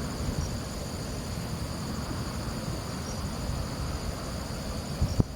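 Crickets chirping in a steady, high-pitched chorus over a low wind rumble on the microphone, with a brief thump near the end.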